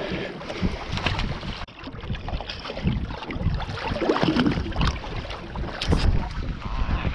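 Wind buffeting the microphone over choppy sea water splashing around a small boat, with irregular gusts and knocks.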